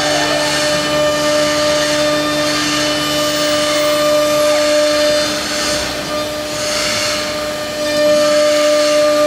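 Blue Elephant automatic vacuum press machine running: a steady mechanical whine over hissing noise, with a lower hum that cuts off about halfway through.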